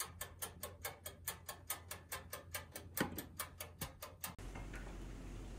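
Toaster oven's wind-up dial timer ticking rapidly and evenly, about five ticks a second, with one louder knock about three seconds in. Past four seconds the ticking stops abruptly and a steady low hum follows.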